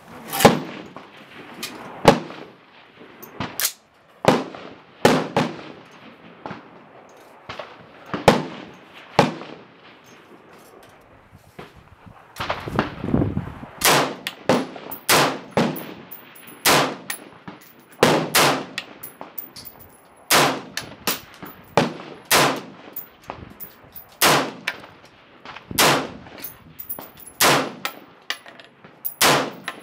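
Rifle gunfire from an AR-15 and a .308: single sharp shots, each with a ringing tail. Shots come irregularly a few seconds apart at first, then in a quicker steady string of about one a second through the second half.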